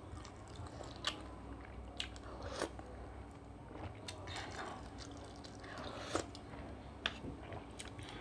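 Close-miked chewing and eating of seafood fried rice, with scattered short, sharp clicks and crunches.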